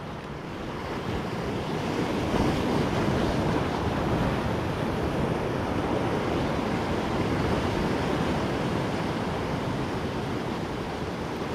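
Sea surf washing in on the shore, a steady rush of water that swells up about a second and a half in, with wind on the microphone.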